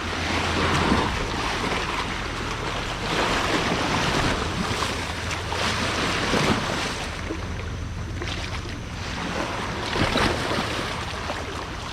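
Sea waves washing against the shore, with wind buffeting the microphone, swelling and easing every few seconds over a faint steady low hum.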